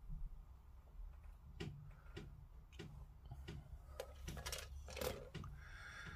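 Plastic model-kit sprue frames being handled, clicking and rattling lightly against each other in a string of faint, irregular clicks.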